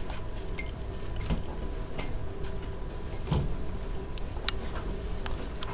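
Several people walking in and moving about a room: footsteps and bag movement with scattered light clicks and jingling, and one louder knock about three seconds in.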